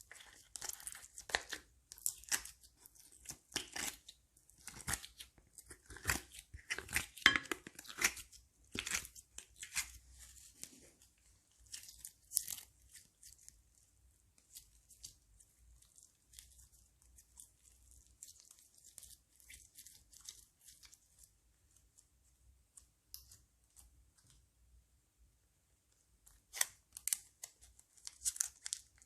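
Crunchy slime being squeezed and worked by hand: a dense run of crackles and pops that thins out to scattered ones about halfway through, then picks up again near the end.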